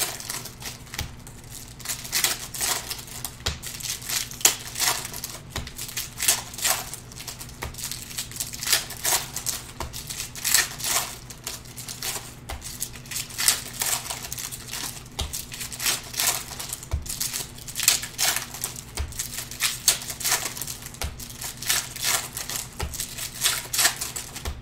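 A stack of Panini Prizm trading cards being flipped through by hand, each card clicking as it is slid off the pile, in a quick, uneven run of clicks.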